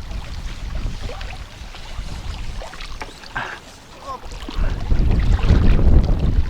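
Strong gusting wind buffeting the microphone: a low rumble that rises sharply about two-thirds of the way in.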